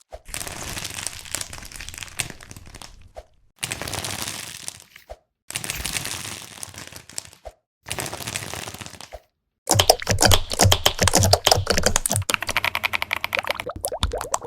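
Soft squishy material being squeezed and pressed, with crinkling and crackling, in several short takes separated by brief silences. From about ten seconds in, a louder take of dense, rapid crackling and popping.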